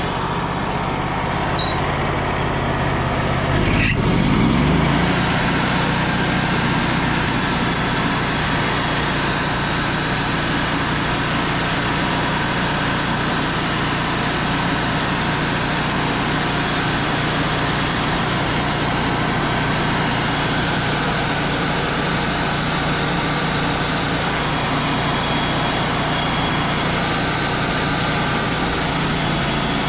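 Wood-Mizer LT35 portable band sawmill running loud and steady. Its engine rises in pitch about four seconds in, then holds an even drone.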